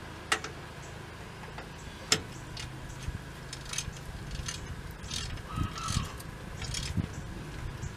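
Hand wrench clinking and scraping on a brake backing plate while the new wheel cylinder's bolts are tightened down: two sharp metallic clicks near the start, then a run of shorter clinks and rasps.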